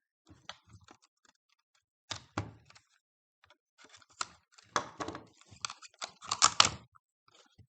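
Irregular clicks, taps and scrapes of hand tools and plastic parts while a lithium-ion tool battery pack is being taken apart, a few at first, then a busier run in the second half.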